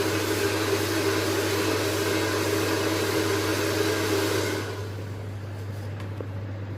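Blow dryer running with a steady airy blowing and a low hum. About two-thirds of the way through it turns quieter and loses its hiss.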